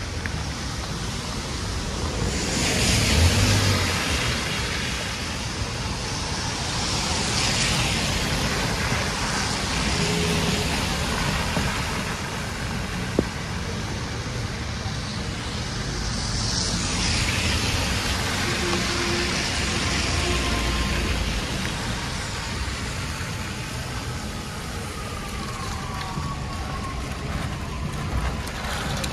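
Cars passing on a rain-soaked city street, their tyres hissing on the wet road, swelling as each vehicle goes by, over a steady wash of traffic noise.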